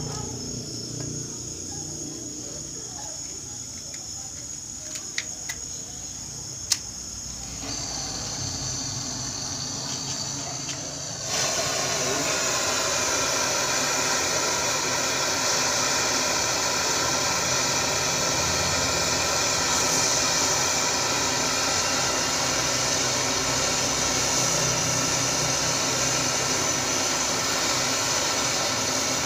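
Handheld butane torch on a gas canister, its flame hissing steadily as it heats a copper tube joint for soldering. A few sharp clicks come early on. The hiss then grows louder in two steps, about eight and eleven seconds in, and holds steady.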